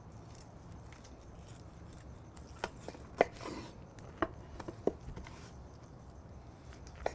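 Knife carving a tomahawk ribeye off its bone on a wooden cutting board, with a run of sharp knocks of blade and bone against the board, the loudest about three seconds in, and one more near the end.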